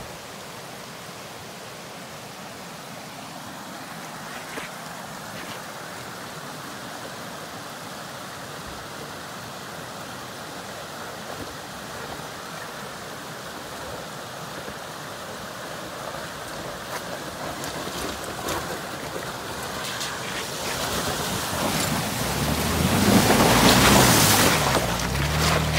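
Steady rush of running water, with a Toyota FJ Cruiser's V6 engine and tyres on rocky ground growing steadily louder as the SUV approaches, loudest as it passes close by about 23 seconds in, its engine note low and wavering.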